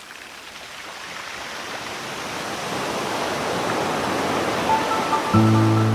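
Opening of a soft background music track: a hiss-like noise swell grows steadily louder, then a few chiming notes and a sustained low chord come in near the end.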